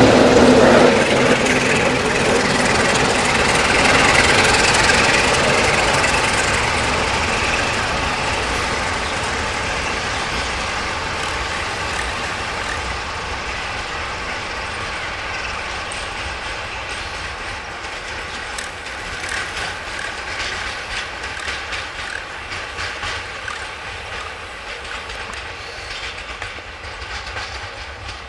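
A train passing close by: steady wheel-and-rail rumble that is loudest at first and fades gradually as it draws away, with wheels clicking over rail joints in the second half.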